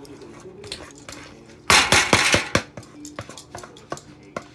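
A kitchen utensil scraping and clinking against a dish, in short strokes with scattered clicks. The loudest cluster of scrapes comes about two seconds in.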